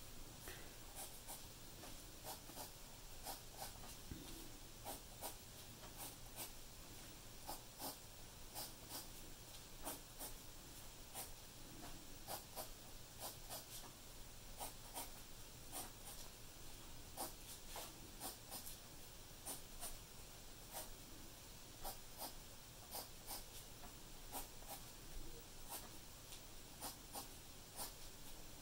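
Wooden graphite pencil scratching short, faint strokes on drawing paper, a few strokes a second at an uneven pace.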